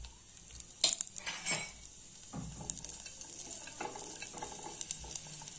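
Cashew and dried-date pieces frying in a little ghee in a stainless steel kadhai, a steady sizzle, with a spatula scraping and knocking against the pan as they are stirred; two sharp clacks in the first second and a half.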